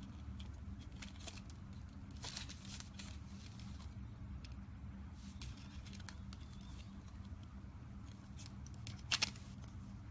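Close-miked ASMR handling sounds: scattered small crackles and clicks, with a sharper crack about nine seconds in, over a steady low hum.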